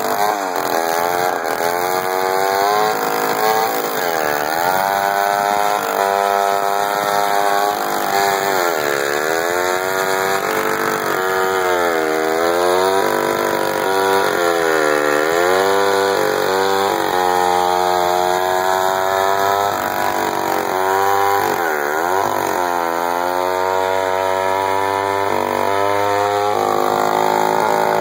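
A 1957 David Bradley two-stroke chainsaw running at high revs as it rips a large log lengthwise. Its pitch dips sharply and picks back up several times as the engine bogs under load in the cut. Near the end it settles to a lower, steady pitch.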